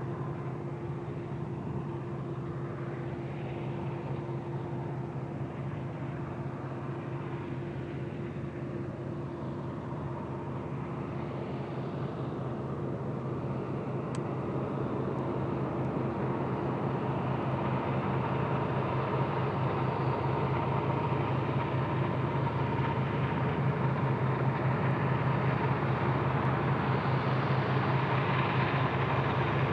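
Steady diesel engine drone of Union Pacific freight locomotives, holding one pitch and growing gradually louder from about halfway through.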